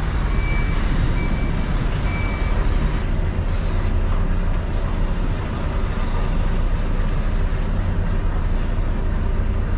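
Lorry diesel engine running at low speed while manoeuvring, with a steady drone. Reversing beeps sound three times in the first couple of seconds, and a short hiss of air comes about three and a half seconds in.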